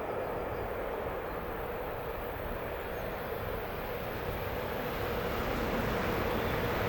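A train approaching on the line, a steady rumble that slowly grows louder.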